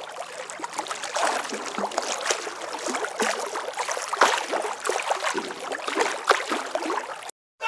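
Water splashing and trickling, a run of small irregular splashes and drips that cuts off suddenly near the end.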